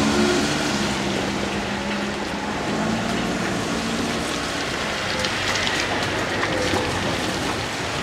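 Kintetsu express train running away along the track, its wheel and running noise slowly fading, with steady rain hiss over it.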